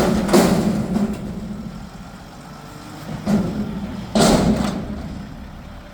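Mack McNeilus front-loader garbage truck's engine idling steadily, broken by four loud, short, hissing crashes: two in the first half-second and two more around three to four seconds in.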